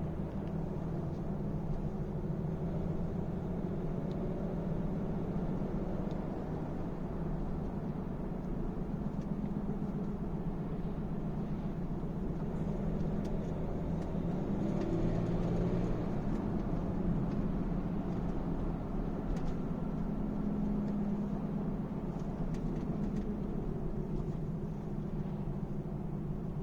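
A car running: a steady low hum with several pitch bands that shift a little and swell slightly past the middle. The owner posts this as a strange noise from the car.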